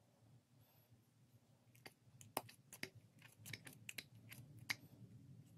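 Faint, irregular clicks and taps of hard plastic and metal parts being handled: the removed top cap and broken cylinder collar of a Porter-Cable DA250B finish nailer turned over and fingered in the hands. The clicks start about two seconds in, after near silence.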